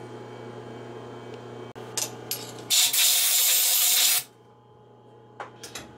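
Compressed-air blow gun blasting chips out of a freshly bored hole in a steel workpiece on a lathe: one loud hiss of about a second and a half, starting nearly three seconds in and cutting off suddenly. Before it there is a steady low hum with a few light clicks.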